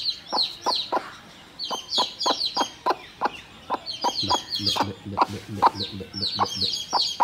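Newly hatched chicks peeping: quick, high, falling cheeps, several a second, with short clucks from the broody hen among them.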